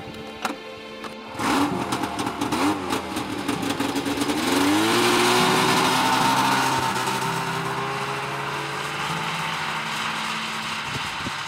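Yamaha snowmobile engine starting about a second and a half in, revving unevenly for a few seconds, then rising in pitch as the machine pulls away, and running steadily after that.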